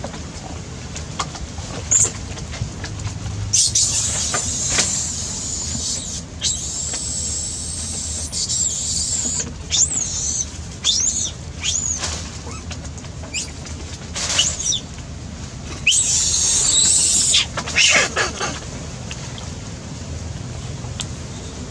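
Young long-tailed macaques squealing in high-pitched bursts, several times, the squeals rising and falling in pitch, over a steady low rumble.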